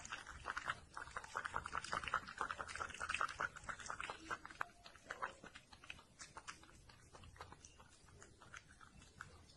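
Kitten licking the inside of a clear cup: rapid, faint wet licking clicks, dense for the first five seconds or so and then thinning to scattered licks.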